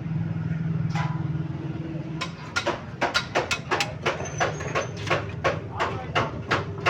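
A vehicle engine idling steadily. From about two seconds in, a quick series of sharp knocks, about three a second, runs over it like hammer blows.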